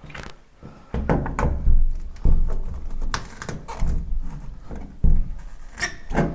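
Heavy hand demolition work: a series of low thuds about every second and a half, with clattering and scraping.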